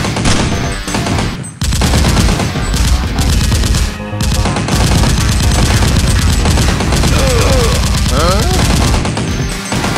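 Rapid, continuous automatic gunfire sound effects over background music, with a short break about one and a half seconds in.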